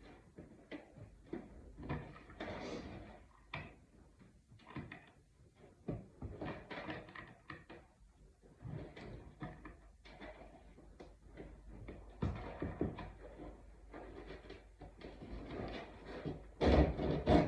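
Irregular clicks, knocks and short scraping as a spline tool pushes the cord and metal screen down into the screen door frame's channel, getting louder near the end.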